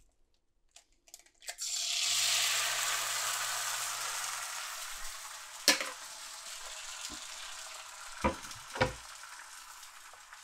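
An egg dropped into hot bacon grease in a preheated Lodge cast iron skillet: a few faint clicks, then about two seconds in a loud sizzle starts suddenly and slowly dies down, with a few sharp pops later on.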